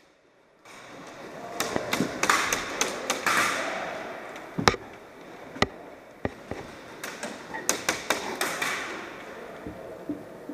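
Airsoft guns firing single shots as irregular sharp cracks, bunched in groups about two seconds in and again near the end, with scattered lone shots between and a rustling noise underneath.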